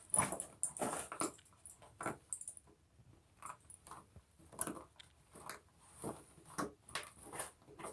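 Dogs pawing and nosing at the fabric flaps of an iDig digging toy, an irregular run of short scratching and rustling strokes.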